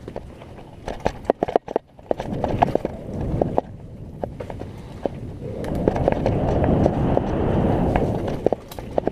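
Mountain bike rolling quickly down a wet dirt singletrack: tyre rumble with sharp rattles and knocks from the bike over bumps and roots, most of them in the first few seconds. In the second half the rolling rush grows louder for about three seconds.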